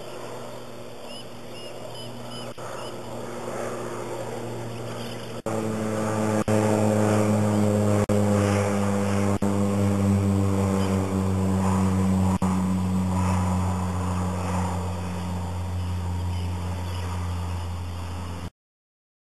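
Propeller aircraft flying overhead: a steady engine-and-propeller drone that gets louder about five seconds in, then slowly falls in pitch and eases off. It cuts off suddenly near the end.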